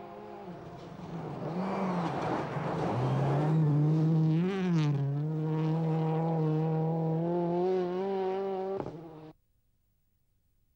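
Ford Focus World Rally Car's turbocharged four-cylinder engine running hard as the car passes, its pitch dipping and rising. It is loudest in the middle and cuts off suddenly about nine seconds in.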